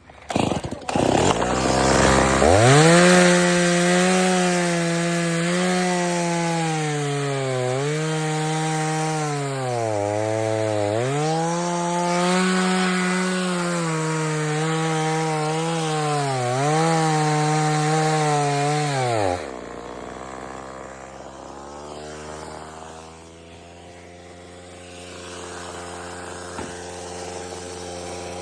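Chainsaw revving to full throttle and cutting wood, its pitch sagging and recovering several times as the chain bogs down under load in the cut. About twenty seconds in the throttle is let off and the saw drops to a steady idle.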